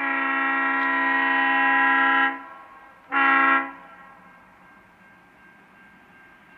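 Diesel locomotive's multi-note air horn sounding one long blast and then a short one about a second later, as the train approaches.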